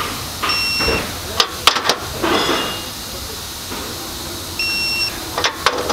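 Electronic torque wrench tightening bolts to a set 120 foot-pounds: twice it gives a half-second beep on reaching the set torque, and each beep is followed by a few sharp clicks. A steady hiss runs underneath.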